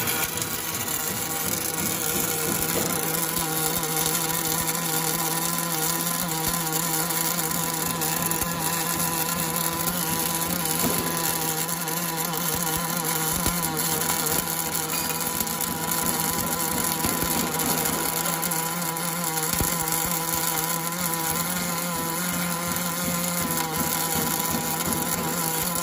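Automatic inner-bore cladding welding machine running: a steady hum with an even hiss and faint scattered crackle throughout.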